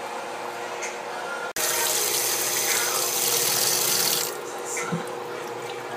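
Kitchen tap water running onto cooked spaghetti in a plastic colander in the sink: a loud, even hiss that starts suddenly about a second and a half in and stops abruptly about three seconds later.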